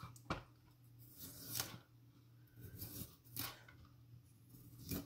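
A knife cutting through broccoli stalks, about five separate faint strokes spread a second or so apart.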